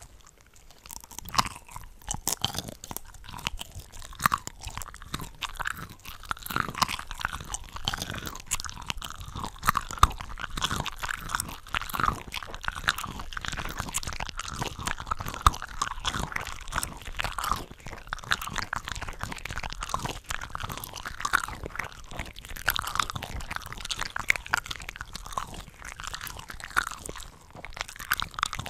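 Close-miked eating sounds of cooked shrimp from a shrimp cocktail platter, layered so that several tracks of biting and chewing overlap into a dense, continuous run of crunches and chews.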